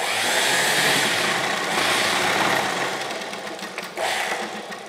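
Sewing machine running steadily as it stitches a seam. It starts suddenly, eases off after about three seconds, runs again briefly about four seconds in, then stops.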